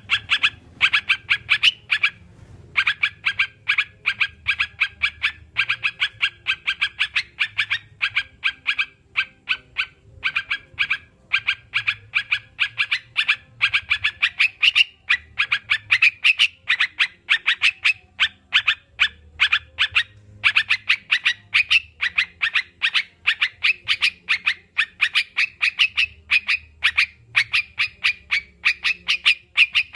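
Crucukan (yellow-vented bulbul) calling in a fast, unbroken run of short chirps, about three to four a second, pausing briefly twice.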